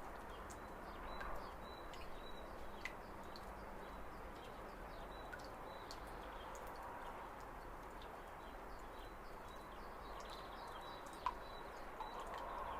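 Spring outdoor ambience: faint, scattered bird chirps over a steady background hiss, with occasional small clicks and one sharper click near the end.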